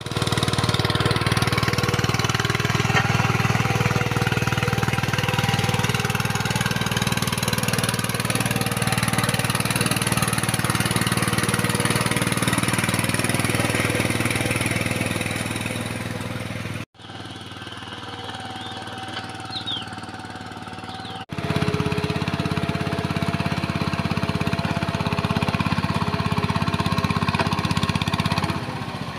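VST power tiller's single-cylinder diesel engine running steadily under load as its rotary tines till a flooded paddy field. The sound drops much quieter for about four seconds past the middle, then returns at full level.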